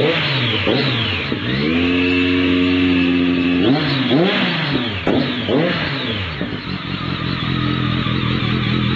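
Motorcycle engine revved through a Roncar Coyote SS1 oval aftermarket muffler: quick throttle blips with the revs dropping back each time, a rev held steady for about two seconds, a few more blips, then a steady lower run for the last few seconds.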